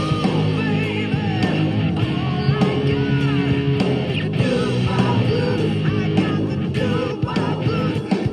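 Wylde Audio electric guitar played through a Yamaha THR amplifier: a rock-blues lead full of bent notes over a rock backing with drums and low sustained notes.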